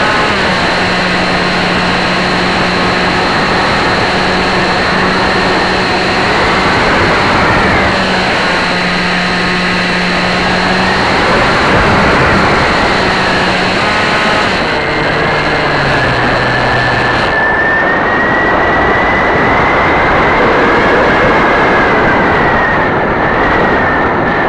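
Electric motor and propeller of an AXN Clouds Fly Floater RC foam plane, heard from a camera on the plane's nose, whining under wind rush. The pitch rises and falls as the throttle and airspeed change.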